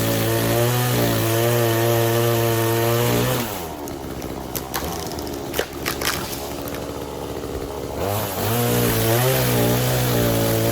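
Blue Max gas chainsaw running at high revs, then dropping back toward idle for about four seconds, with a few sharp cracks in that quieter stretch, before revving up again.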